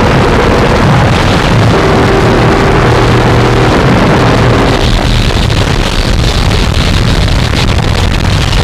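Harsh noise music: a loud, dense wall of distorted noise with low droning tones underneath. About five seconds in, the drones drop out and the texture turns thinner and hissier.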